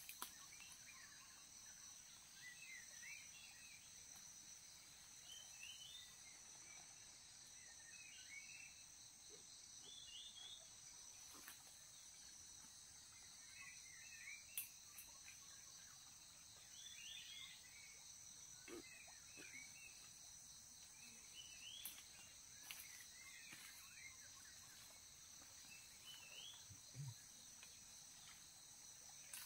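Faint steady high drone of insects, with short chirping calls every few seconds and a few soft clicks.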